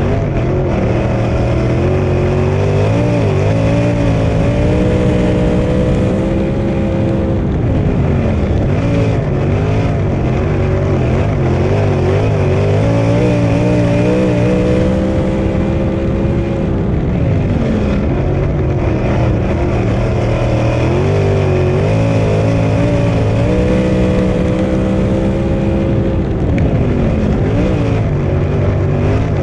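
Onboard sound of a 410 sprint car's V8 engine racing flat out on a dirt oval. Its pitch climbs and holds high on the straights, then drops back and picks up again as the throttle is lifted and reapplied through the corners, several times over.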